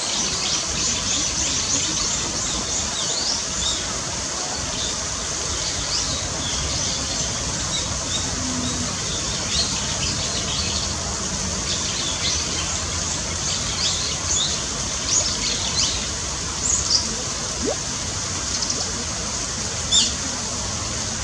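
A flock of Eurasian tree sparrows chirping with many short, high calls over the steady rush of a waterfall. A single sharp click about a second before the end.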